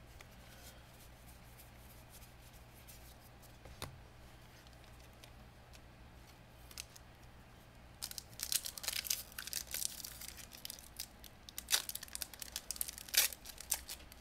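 Foil wrapper of a Pokémon Battle Styles booster pack being torn open and crinkled: a run of crackly rips and crinkles starting about eight seconds in, after a quiet stretch with a couple of faint clicks.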